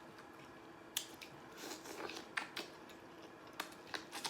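Close-up eating sounds: sharp bites and wet mouth clicks from someone eating corn on the cob, with a cluster of crunchy chewing a little before the middle and a few more clicks near the end.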